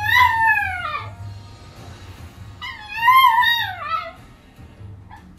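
Yorkshire terrier puppy howling and crying: two long, high-pitched wailing cries that fall in pitch, about two and a half seconds apart. This is the crying of a puppy distressed at being left alone, over music from a television.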